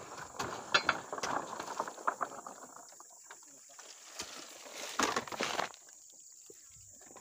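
Oil palm fruit bunches handled with a metal pole during truck loading: a run of sharp clinks and knocks over the first few seconds, then a short rustling rush about five seconds in.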